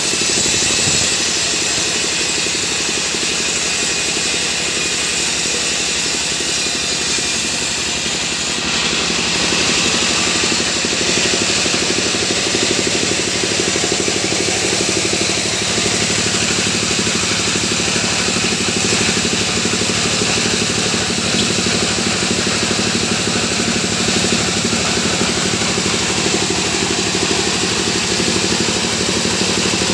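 Sawmill machine running steadily, with a steady engine-like drone; it gets a little louder about eight and a half seconds in.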